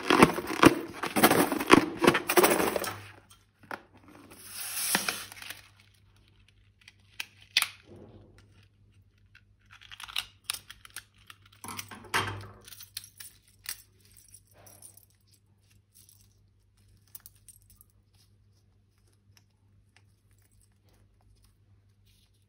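Slime-making handling noises: dense crinkling and tearing for about three seconds, a short rustle about five seconds in, then scattered small clicks and clinks that die away to near quiet.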